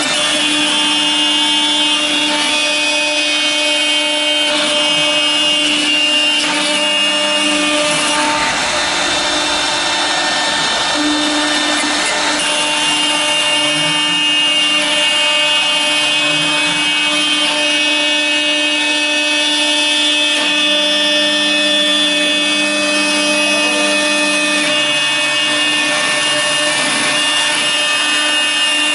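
A CNC router spindle milling a clear acrylic sheet: a steady high-pitched whine from the spindle over the hiss of the bit cutting the plastic. Beneath it, a lower hum shifts in pitch every few seconds.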